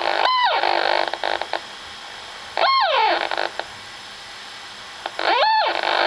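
Old Macintosh's sound output whistling and hissing. Electronic whistles swoop up and fall back three times, near the start, about halfway and near the end, over a steady hiss that drops to a quieter hiss in between. The noises come from dead capacitors on the logic board.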